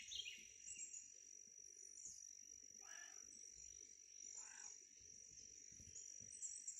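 Faint outdoor ambience: a steady high insect trill, with two short, lower animal calls about three seconds in and again a second and a half later.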